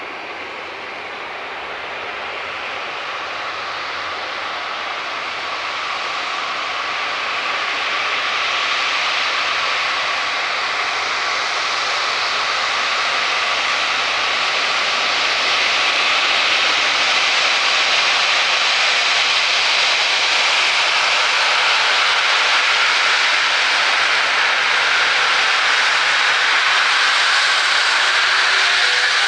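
Airbus A350's Rolls-Royce Trent XWB turbofans running at taxi power, a steady jet rush and whine. It grows louder over the first half as the aircraft approaches, then holds steady.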